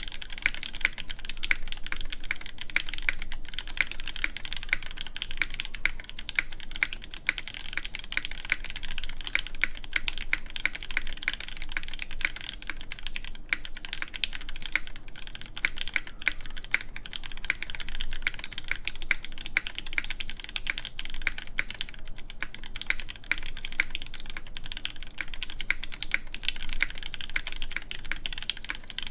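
Continuous typing on an iNN Studio Parabolica60 mechanical keyboard in its top-mount setup: lubed Gateron Red Ink linear switches with TX films, on a full aluminum plate under GMK Pristine keycaps. The keystrokes come as a steady, rapid stream of crisp clacks.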